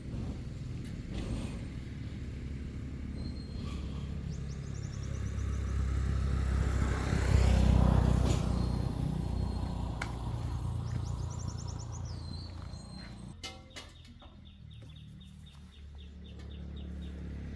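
A motor vehicle passing by: a low rumble that swells to a peak about halfway through and then fades. Birds chirp in short trills now and then.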